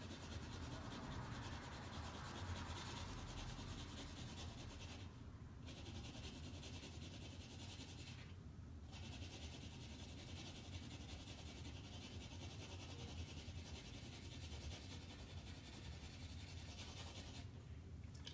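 Graphite pencil scratching on drawing paper in continuous back-and-forth shading strokes, with two brief pauses and stopping shortly before the end.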